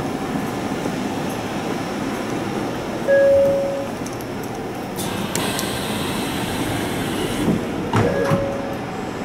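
Interior ambience of a Sanyo 6000 series electric train standing at a platform with its doors open: a steady low hum and rumble, a short electronic beep about three seconds in and again near the end, and a few sharp clicks in between.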